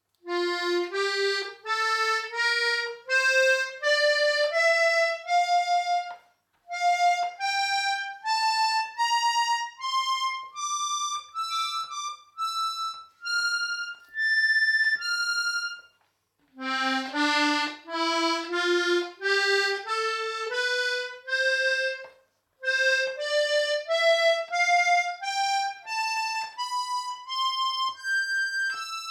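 Hohner Corona II three-row diatonic button accordion in G/C/F playing its treble scales note by note, each note about half a second long and stepping upward in pitch. After a short break about 16 seconds in, a second scale starts lower and climbs again.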